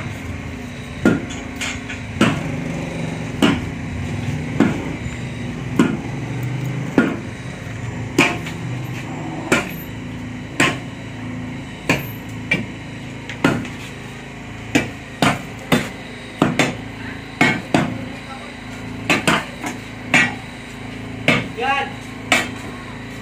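Long steel bars striking down into a concrete septic tank, repeated sharp knocks about once a second that come faster in the second half, as the crew breaks up and stirs the sludge for suction. A steady hum runs underneath.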